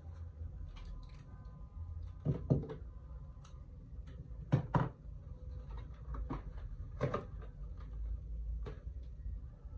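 Handling of a phone box and its contents during unboxing: a few sharp clicks and knocks, two quick double knocks a couple of seconds apart and then single ones, over a low steady hum.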